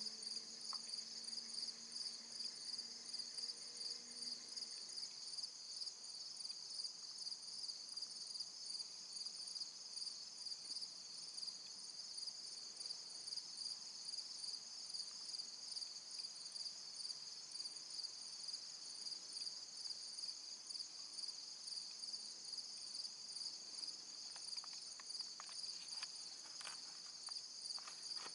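Insect chorus: a steady, high-pitched trill pulsing rapidly and evenly. A few faint ticks or snaps come near the end.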